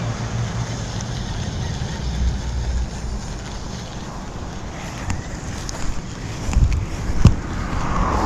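Wind buffeting the microphone outdoors, a steady low rumble, with a few sharp clicks in the second half, the loudest about seven seconds in.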